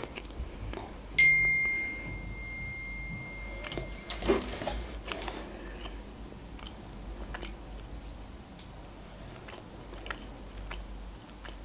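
A phone's notification chime sounds once about a second in: a single high tone that dies away over about three seconds. Around it, quiet chewing with small mouth clicks.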